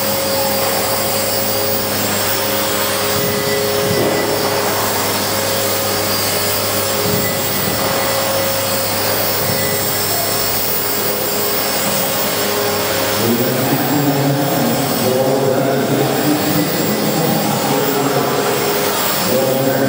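Small radio-controlled helicopter hovering low, a steady whir of its motor and rotor blades. About two-thirds of the way through the sound grows a little louder and rougher, with shifting pitch.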